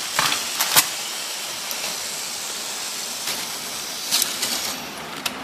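Steady whirring hiss of a Plarail toy train's small battery-driven motor running on after a derailment, with a few light plastic clicks.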